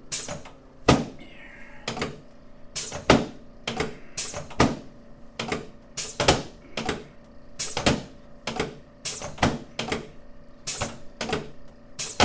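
Repeated sharp clicks during a chiropractic adjustment, about two a second and often in close pairs, over a faint steady hum.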